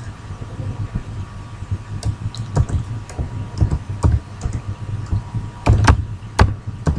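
Computer keyboard being typed on: a scattering of irregular key clicks starting about two seconds in, over a steady low hum.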